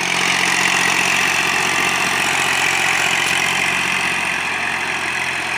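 Diesel tractor engines running steadily under load as a Zetor tractor tows a mired Ursus tractor and its trailer out of mud.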